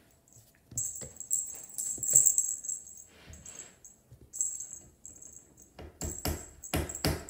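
A feather wand cat toy jingles in short, stop-start shakes as a Bengal kitten jumps at it. Several sharp thumps come near the end as the kitten lands.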